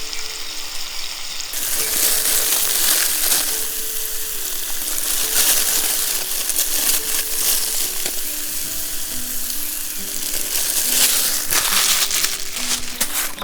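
Food sizzling as it fries in a pan, a steady sizzle that gets louder about a second and a half in, with crackles here and there.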